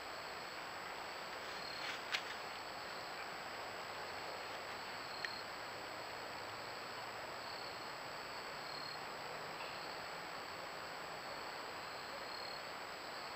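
Faint insect trills coming and going over a steady hiss and a thin high electronic whine from a trail camera's microphone, with two sharp crackles in dry leaf litter about two and five seconds in.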